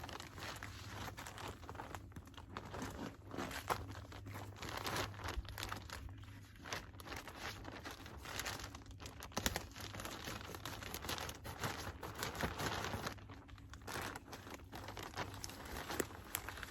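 Plastic bag of potting mix crinkling and rustling as it is handled and emptied, with the mix pouring out in a continuous crackly rush dotted with small clicks.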